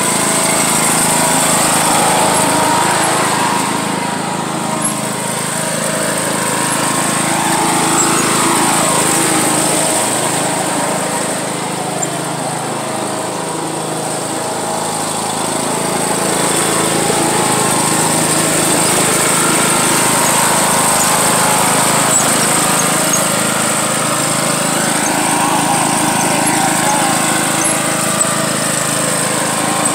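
John Deere riding lawn mower engine running under load while driving and towing, steady throughout. It eases off and then picks up again a few times as speed and throttle change.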